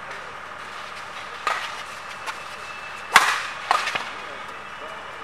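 Badminton rackets striking a shuttlecock with sharp cracks: a faint one about one and a half seconds in, then a loud one about three seconds in followed quickly by another, over a low murmur of spectators.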